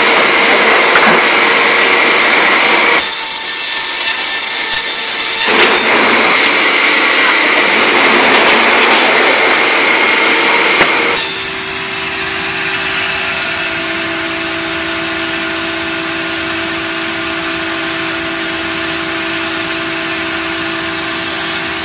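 Sawmill machinery running loudly, with saw cutting noise that changes twice. About halfway through it cuts to a quieter, steady hum of a multi-blade circular log saw running.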